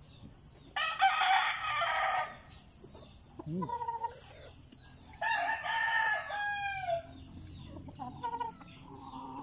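Gamecock roosters crowing twice: one crow about a second in and another about five seconds in, each lasting about a second and a half, the second ending in a falling note.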